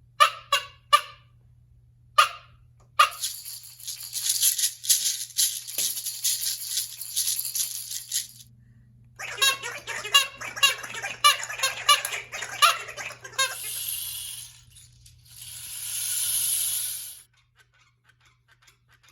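Sound effects made by hand with props: a few sharp clicks, then a long hissing rattle, then a fast rattling patter, and a rush that swells and fades away near the end.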